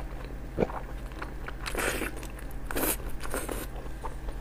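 Close-up wet biting and chewing sounds of eating soft sheep blood sausage, with a sharp click about half a second in and a few short, wet bursts after it.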